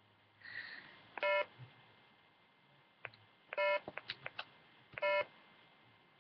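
Three short electronic beeps, about a quarter-second each: one a little over a second in, then two more about a second and a half apart near the end, with a few faint clicks between them.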